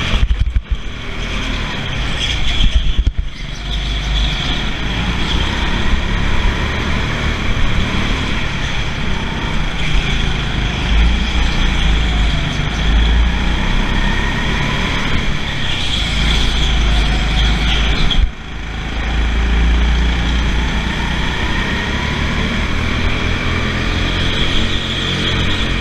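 Go-kart running at racing speed around an indoor track, its motor and tyre noise heard from the driver's seat, with other karts close by. The sound dips sharply for a moment about 18 seconds in.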